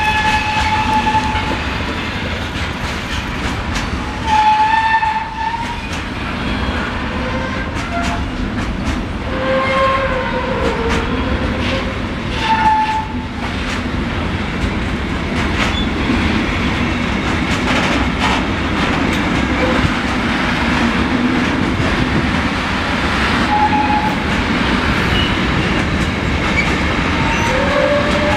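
A long intermodal freight train of pocket wagons carrying truck trailers rolling past, with a steady rumble and wheels clicking over rail joints. Short, high squealing tones come and go several times.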